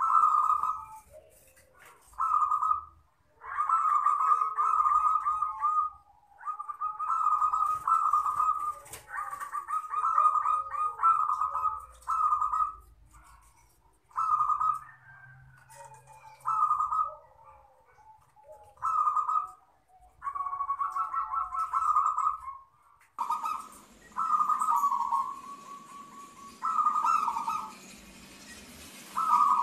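Zebra dove (perkutut) singing its cooing, trilling phrase over and over in short bursts with brief pauses between. About two-thirds of the way in, a steady hiss joins beneath the calls.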